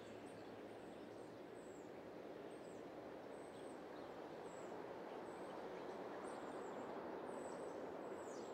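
Faint steady background ambience with small birds giving short, high chirps every second or so.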